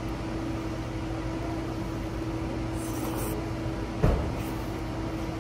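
Steady low mechanical hum with one constant tone. A brief hiss comes about three seconds in, and a single soft thump about a second later.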